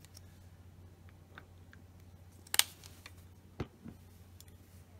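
A few light, sharp clicks and taps from handling an acrylic paint bottle and dotting tools on a tabletop, the sharpest about halfway through, over a steady low hum.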